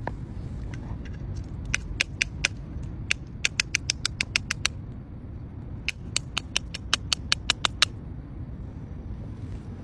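Fuel filler cap ratchet clicking as the cap is twisted: two runs of quick, sharp clicks, about five a second, over a steady low rumble.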